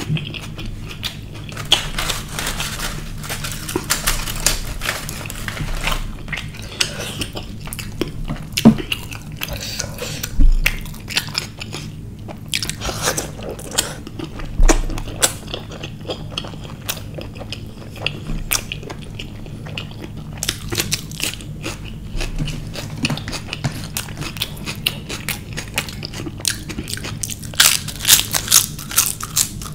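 Close-miked chewing with wet mouth sounds and crunching, ending in a run of loud, crisp crunches as a papad is bitten near the end.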